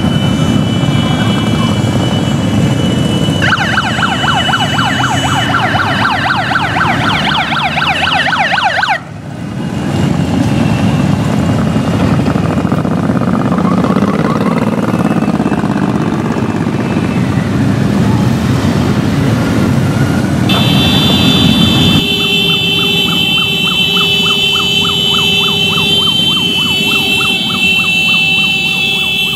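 Procession of cruiser motorcycles riding past, their engines making a deep steady rumble. A siren sounds over them in quick yelping cycles a few seconds in, and again through the last third.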